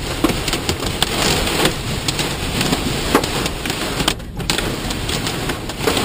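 Hail and heavy rain pelting a minivan's roof and windshield, heard from inside the cabin: a dense steady hiss scattered with many sharp irregular ticks of hailstones striking. The sound briefly drops out about four seconds in.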